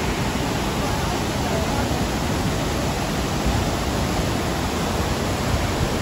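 Waterfall rushing steadily and loudly close by.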